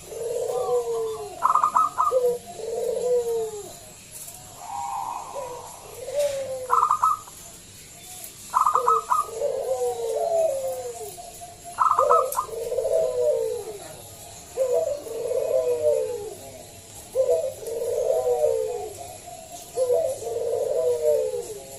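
Zebra dove (perkutut) singing its cooing song: repeated phrases of quick, clipped high notes followed by lower, falling, rolling coos, about every two to three seconds.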